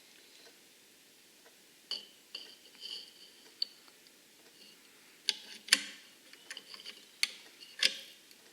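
Metal hex key clicking and tapping in the pistol grip screw as it is tightened by hand: a few light clicks with a brief ringing note, then a run of sharper clicks in the second half.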